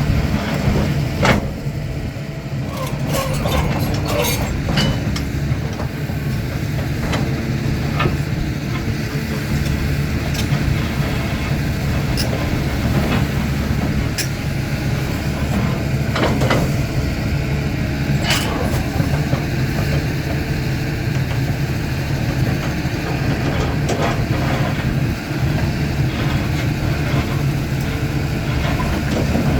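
CAT 320D hydraulic excavator's diesel engine running steadily under working load, with scattered clanks and knocks from the digging.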